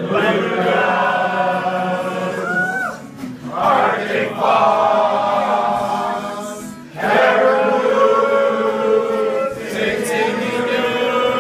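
A group of people singing together as a choir from song sheets, holding long notes in phrases, with short breaks about three and seven seconds in.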